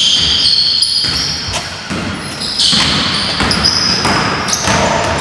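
A basketball dribbled on a hardwood gym floor, with several bounces and short high sneaker squeaks as players run the court.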